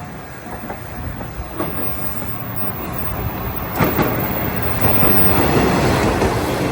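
Electric railway train approaching and running over a level crossing, growing steadily louder. Its wheels clack sharply over rail joints, once a little over a second in and twice close together about four seconds in.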